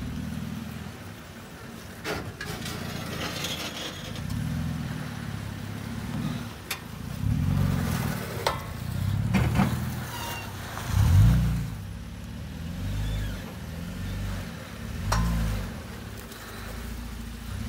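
Third-generation Toyota Tacoma crawling over boulders: the engine rises and falls in short bursts of throttle at low speed, with the strongest surge about eleven seconds in. A few sharp knocks come from the truck working over the rock.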